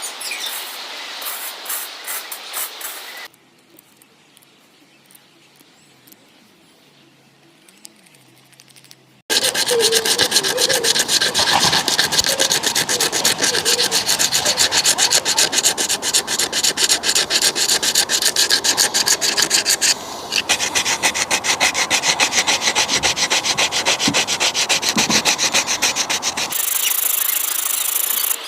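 Wood being worked by hand with fast, even back-and-forth abrasive strokes, as in shaping a yew slingshot fork. The strokes start about a third of the way in after a quiet spell, pause briefly near two-thirds, and stop shortly before the end.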